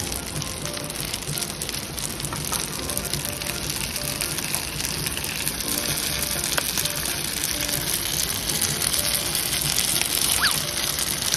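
Cooking oil sizzling steadily in a hot non-stick pan beside stir-fried rice noodles, heating for an egg to be fried.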